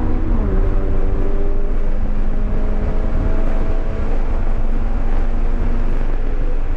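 2023 Subaru BRZ's 2.4-litre flat-four engine at full throttle, heard from inside the cabin. An upshift about half a second in drops the revs, then the engine note climbs steadily back toward 7,000 rpm over loud road and wind noise.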